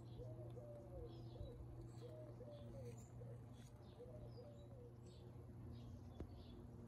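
A pigeon cooing softly, a run of low coos that stops about five seconds in, with faint small-bird chirps in the background.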